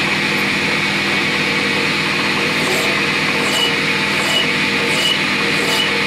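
Metal lathe running steadily with a small steel pin spinning in its chuck. From about two and a half seconds in, a file is drawn across the spinning pin about once every three-quarters of a second, each stroke adding a short scrape.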